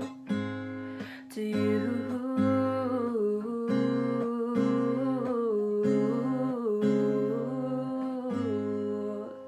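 Acoustic guitar strumming the closing chords of a song, with a wordless sung melody line over it; the last chord rings out near the end.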